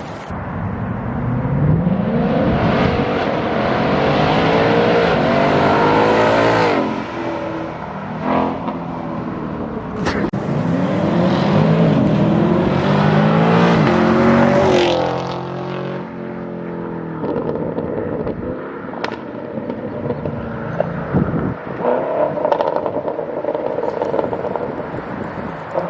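Modified V8 car exhaust accelerating hard twice, its pitch climbing for several seconds each time before dropping away, then running lower and rougher, with a few sharp cracks in between.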